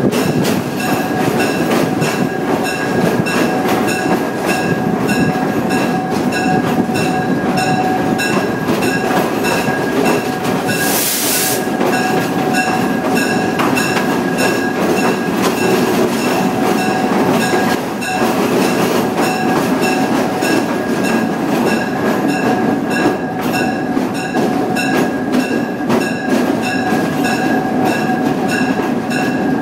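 Locomotive running through a tunnel, heard from inside the cab: steady engine and wheel-on-rail noise with a steady whine over it, and a brief hiss about eleven seconds in.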